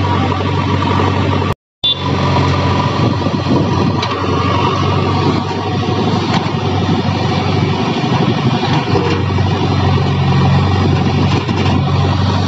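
JCB backhoe loader's diesel engine running steadily while the backhoe digs. The sound drops out completely for a moment about one and a half seconds in, then the engine carries on unchanged.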